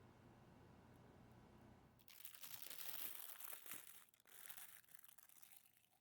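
Faint, dry crinkling and crunching that starts suddenly about two seconds in and dies away near the end.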